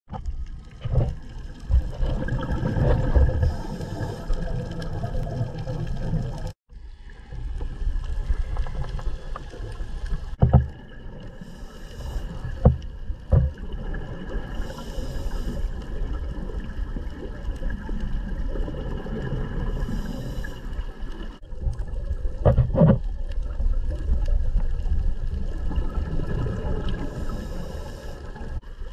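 Underwater sound picked up by a dive camera in its housing: a steady low rumble, with a hissing rush of scuba regulator exhaust bubbles every several seconds and a few sharp knocks. The sound drops out briefly about six and a half seconds in.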